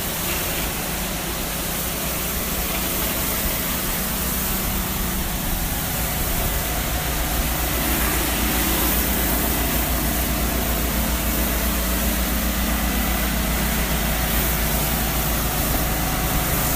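Engine-driven soft-wash pump running steadily, with the hiss of low-pressure spray, getting a little louder about six seconds in.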